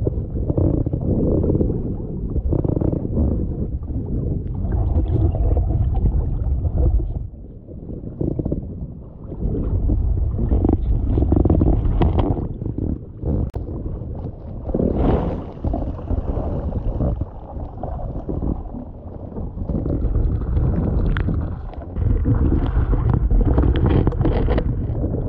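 Wind buffeting the camera's microphone, mixed with choppy sea water sloshing and splashing, rising and falling in uneven gusts with brief lulls.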